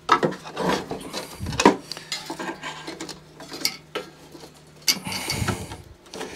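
Irregular metal clinks, knocks and scraping as a screwdriver and hands work at the rusty, seized engine mounting and height-control parts on a lawnmower's steel deck.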